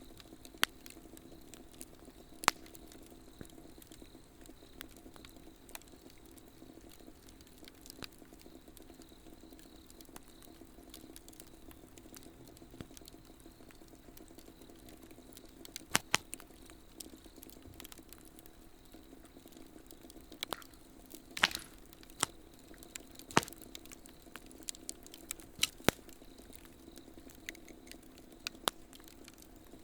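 Swedish torch, an upright split log burning from the inside, crackling with scattered sharp pops of burning wood, over steady insect calling.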